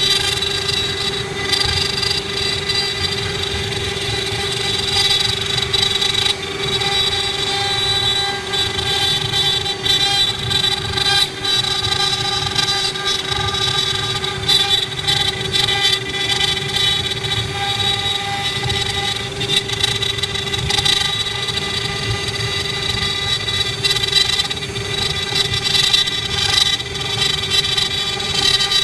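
Four-head CNC wood carving router running: a steady machine whine held at several pitches over an uneven, rough noise.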